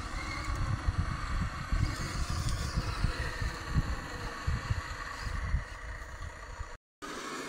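Electric motors and gears of RC scale crawler trucks whining steadily as they crawl up a steep dirt slope, over irregular low rumbling knocks on the microphone. The sound drops out abruptly for a moment near the end.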